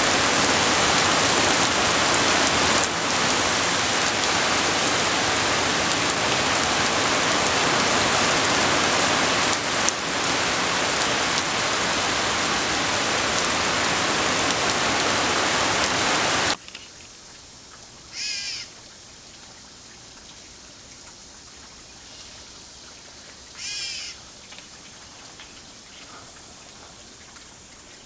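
Very heavy rain pouring down in a steady hiss, which cuts off abruptly a little over halfway through. A quiet outdoor background follows, where a bird gives two short calls about five seconds apart.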